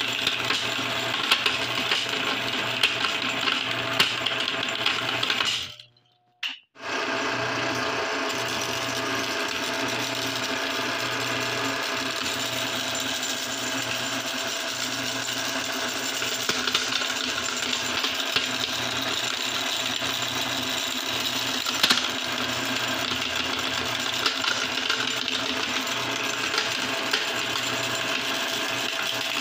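Glass marbles being crushed in a meat grinder: a continuous dense crunching and clattering of glass against the metal auger and cutting plate, over a steady low hum. It breaks off briefly about six seconds in.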